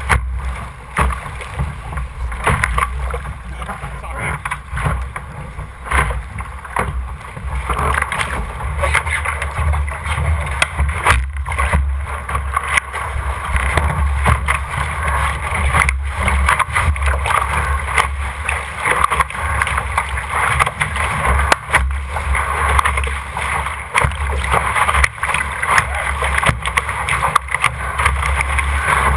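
Water rushing and splashing along an RS600 dinghy's hull under sail, with wind rumbling on the microphone and frequent knocks of chop against the hull.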